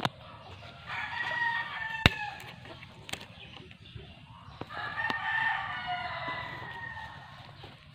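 A rooster crowing twice: one crow about a second in and a longer one about halfway through. There is a sharp knock about two seconds in.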